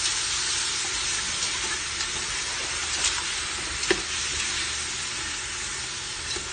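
Chicken pieces sizzling as they sauté in hot oil in a metal pot, a steady frying hiss under the scrape of a utensil stirring them. A couple of sharp knocks of the utensil against the pot come about three and four seconds in.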